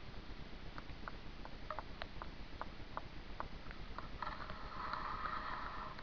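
Woodpecker tapping on a dry tree while foraging: short, sharp, irregular knocks, about two or three a second, not a drumming roll. About four seconds in, a steady rasping sound lasting nearly two seconds joins them.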